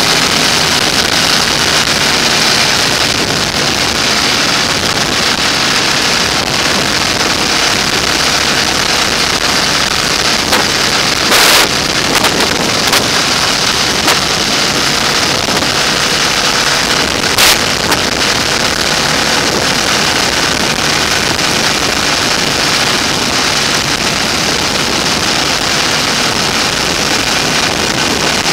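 Motorcycle riding at road speed: steady wind rush over the microphone, with the engine running faintly underneath. Two short, louder buffets break in near the middle.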